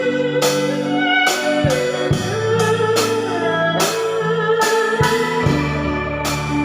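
Live band music: drums keeping a steady beat about once every 0.8 seconds under sustained, pitch-bending melody lines over electric guitar and keyboard.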